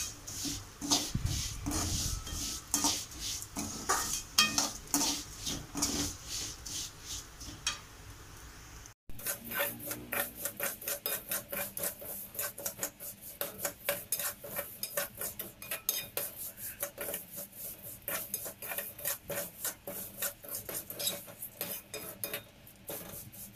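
A spatula scraping and clattering against a metal kadai in quick repeated strokes as vermicelli is stirred and dry-roasted in ghee until golden brown. There is a brief break about nine seconds in, after which the strokes come faster.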